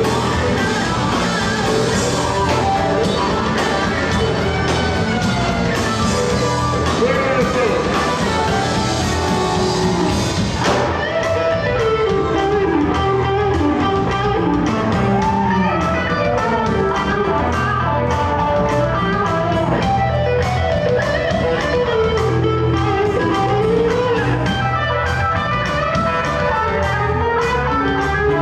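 Electric blues band playing live without vocals: an electric guitar lead with bent notes over electric bass and a drum kit.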